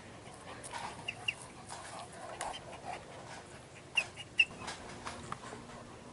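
A dog sniffing and moving about, with scattered small clicks and a few very short high chirps: a pair about a second in and a quick cluster near four seconds in, the loudest moments.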